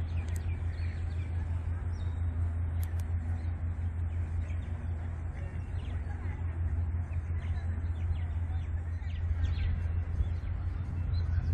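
Birds chirping with many short calls, over a steady low rumble.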